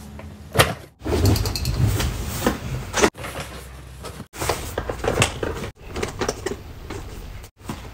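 Cardboard box being handled and opened: scraping, rustling and a few sharp knocks as it is set down and its flap is pulled, broken by several abrupt cuts.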